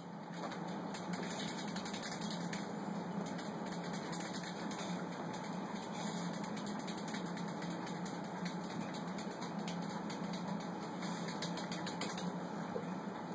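Aquarium pump running with a steady low hum, with fast, irregular ticking over it.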